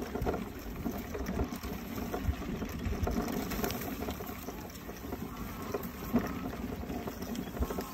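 Tzora Titan XL mobility scooter driving along a narrow gravel path: a rough, uneven rumble and crackle of its wheels on the gravel.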